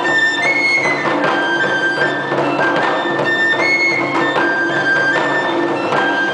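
Fue (Japanese bamboo transverse flute) playing a melody of long held high notes, with shime-daiko and shoulder-slung katsugi daiko drum strikes under it.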